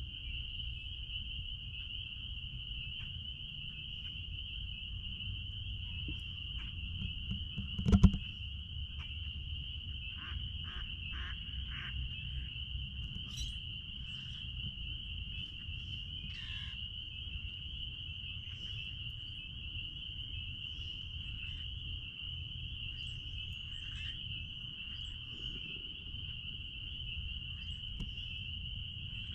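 Spring peepers chorusing: a dense, steady, high-pitched wall of peeps with no break. A low rumble runs underneath, and a single loud bump comes about eight seconds in.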